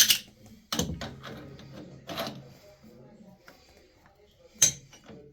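Tools tightening a pipe fitting: a handful of sharp metallic clicks and knocks, spread out.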